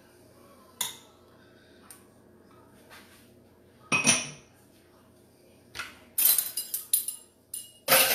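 Kitchenware being handled: a couple of separate knocks, a ringing metallic clink about four seconds in, then a quick run of clattering near the end, as cookware and utensils are moved about at the counter.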